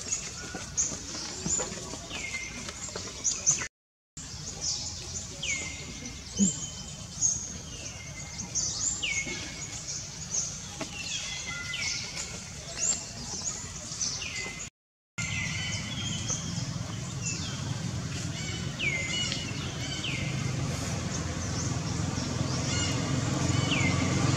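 Birds chirping repeatedly: short, high calls that each slide sharply downward in pitch, about one a second, over a low background rumble that grows louder through the second half. The sound drops out completely twice for a moment.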